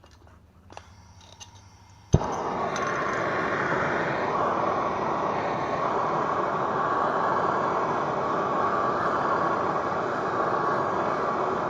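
A handheld gas torch lit with a sharp click about two seconds in, then burning with a loud, steady hiss as it heats the U-joint yoke to melt out the injected nylon cap retainers.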